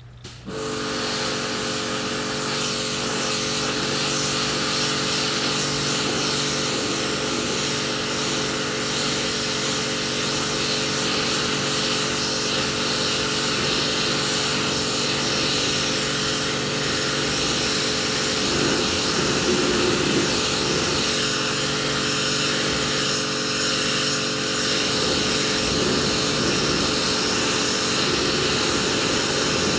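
Electric pressure washer running: a steady motor hum under the hiss of the high-pressure water jet on the boat's deck. It cuts in sharply right at the start.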